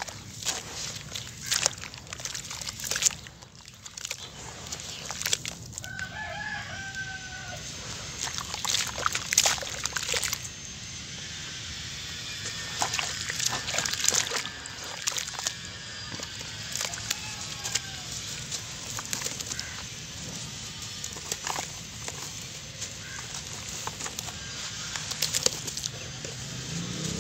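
Wet sand-and-cement mix being squeezed and crumbled by hand in a basin of water: irregular squelches, splashes and gritty crackles. A chicken calls in the background about six seconds in.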